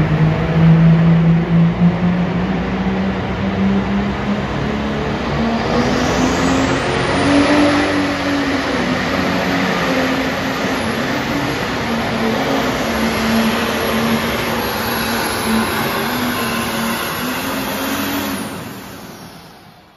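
Pulling tractor's engine running flat out under load as it drags the weight-transfer sled down the track, a steady drone with a high thin whistle coming in about six seconds in. The sound fades out near the end.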